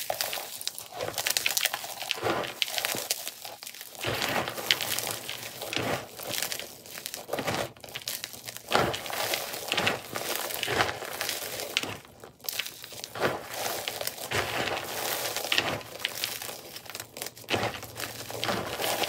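Blocks of fresh gym chalk being crushed and squeezed by hand, played back sped up. The result is a dense, unbroken run of crisp crackling and crunching with a few short pauses.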